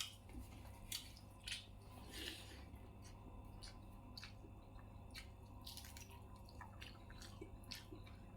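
Faint chewing with soft, irregular mouth clicks and smacks, about one a second in the first half and sparser after, over a low steady hum.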